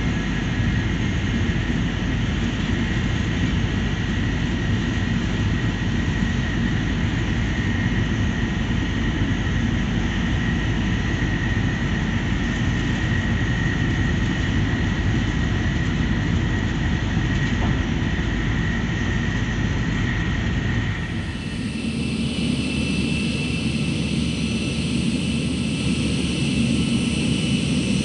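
Jet airliner's engines running steadily on the ground: a continuous rumble with a thin, steady whine over it. About three-quarters of the way through the sound changes suddenly to a similar steady engine noise with a higher whine.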